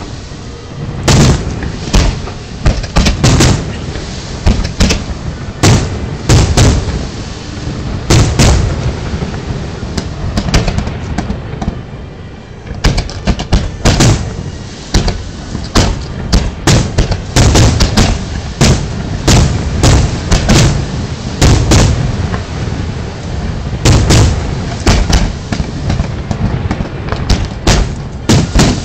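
Fireworks display: aerial shells launching and bursting in rapid volleys of loud bangs, with a low rumble lingering between them. The bangs ease off briefly a little before halfway, then come thick again.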